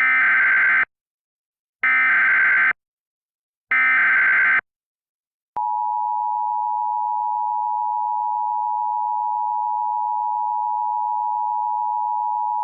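Emergency Alert System broadcast signal: three short bursts of SAME digital header data, each just under a second with about a second between them. About five and a half seconds in, the steady two-tone EAS attention signal starts (853 and 960 Hz sounded together), announcing a new emergency alert.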